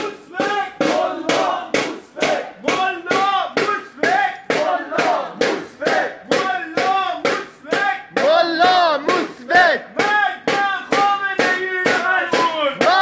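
Crowd of demonstrators chanting a slogan loudly in unison, in a fast, even rhythm of about three to four beats a second.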